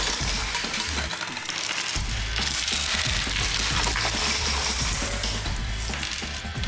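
Coin pusher machine: a steady stream of coins clinking as they drop onto the playfield and are shoved against the piled coins by the sliding pusher shelf.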